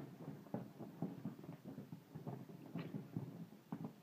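A puppy scrabbling and spinning on a sofa as she chases her own tail: irregular scuffs, thumps and scratches of paws and body against the cushions.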